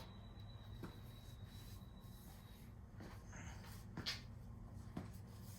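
Faint handling noises while working on a mower engine: light rubbing and a few small clicks, over a steady low hum.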